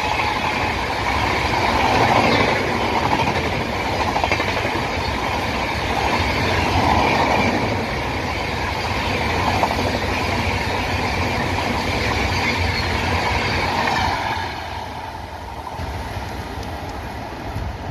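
Express passenger train's coaches rushing past at speed, a loud steady rush of wheels on rails. The noise drops off about fourteen seconds in as the last coach passes.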